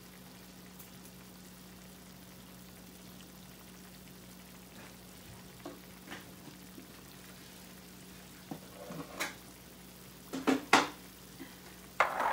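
Chicken drumsticks simmering and softly sizzling in soy-sauce braising liquid in a frying pan. A few sharp knocks come in the last few seconds.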